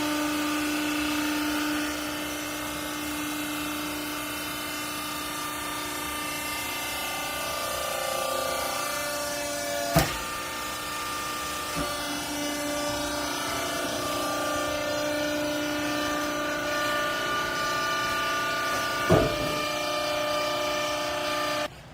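Cleaning-rags baling press running: a steady mechanical hum with several held tones, broken by two sharp knocks about ten and nineteen seconds in, then stopping abruptly near the end.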